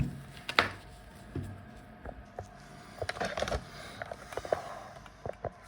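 Scattered clicks and light knocks of hands handling laptop parts, with a busier patch of handling noise about three seconds in.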